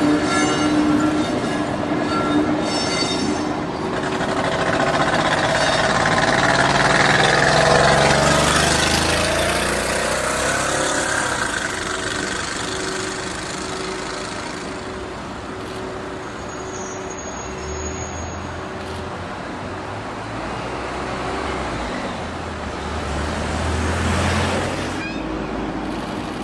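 Road vehicles, cars and trucks, driving past over a level crossing, the engine and tyre noise swelling to a peak about eight seconds in and again near the end. A repeated ringing tone, the crossing's warning bell, sounds for the first three seconds and then stops.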